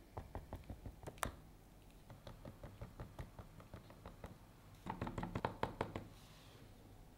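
A spoon tapping and knocking lightly against a plastic popsicle mould as thick ice cream mixture is spooned into its cavities: quick clusters of small taps, the busiest run about five seconds in.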